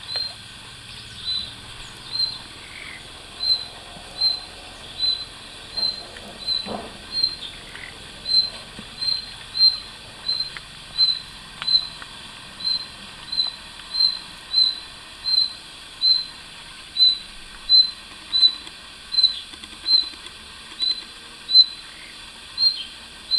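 A cricket chirping: a short high chirp repeated steadily, about three every two seconds.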